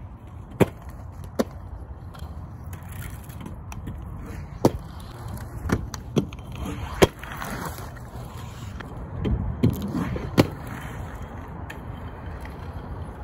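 Flatland BMX practice on hard ground: tyres rolling with a steady low rumble, broken by about eight sharp knocks and clacks as the bike and the rider's feet hit the ground during tricks.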